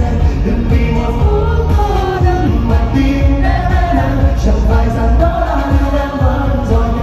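Vietnamese pop ballad played loud through a sound system: singing over band backing with a heavy bass.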